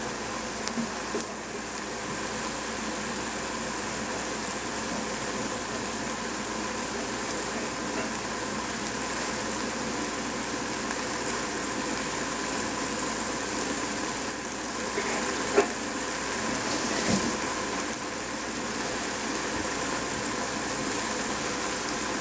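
Baby cabbage simmering in a little boiling water in a stainless steel pot, a steady sizzling bubble that grows slightly louder, with a couple of faint clicks about two-thirds of the way through.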